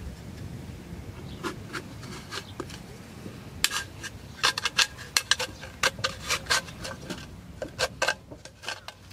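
Metal gear being handled: a run of sharp, irregular metallic clinks and clatters, sparse at first and coming thick and fast from about a third of the way in, some ringing briefly.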